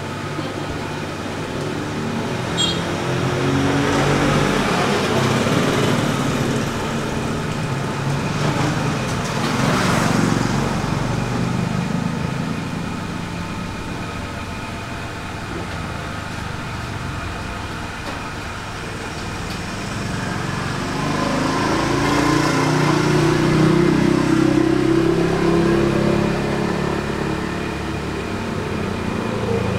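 Motor-vehicle engine noise that swells and fades twice, loudest about ten seconds in and again a little past twenty seconds, like traffic going by.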